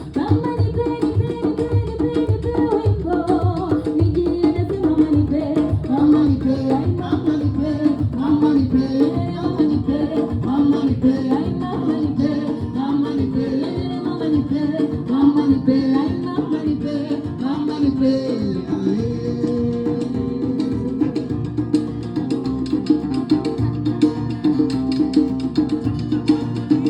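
Live band music: drums and percussion keeping a dense, steady rhythm under a wavering melody line.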